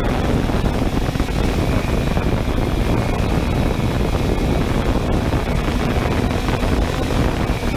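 3DR Solo quadcopter drone's propellers running steadily, heard through its own onboard camera, mixed with wind noise on the microphone.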